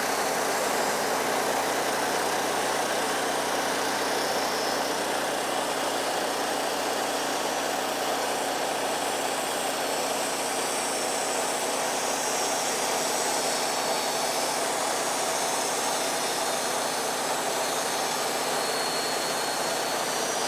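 Wood-Mizer LT15 portable band sawmill running steadily as its engine drives the band blade through a locust log.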